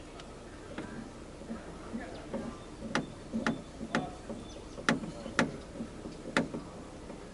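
A run of sharp, irregular clicks and knocks from hand work on a car door speaker and its mounting, the loudest coming in a cluster between about three and six and a half seconds in.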